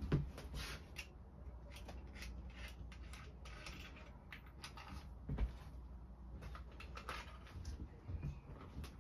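Hands handling a small plastic tactical laser unit while fitting its battery: scattered light clicks and rustles, with soft knocks just after the start and about halfway through.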